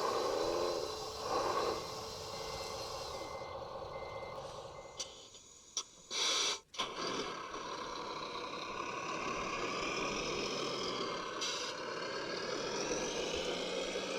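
Radio-controlled construction machines working: a reverse-warning beeper sounds about twice a second for a few seconds. After a sudden break about six seconds in, steady motor and gear noise follows, with a hum that rises near the end.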